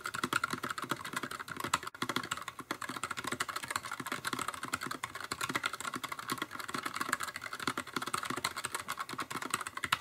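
Fast two-handed typing on a NuPhy Air75 aluminium-framed low-profile mechanical keyboard with Gateron Low-Profile Red linear switches: a steady, rapid run of soft key clacks.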